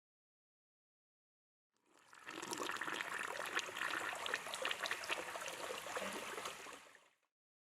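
Water splashing and trickling, with many small clicks and spatters. It fades in about two seconds in and fades out just before the end.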